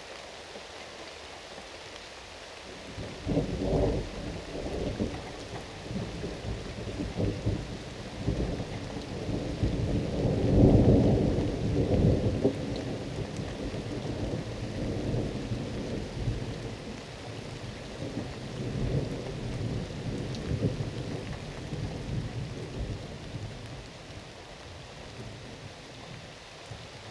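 Steady rain with thunder rumbling. The first roll comes about three seconds in, and the loudest about ten to twelve seconds in.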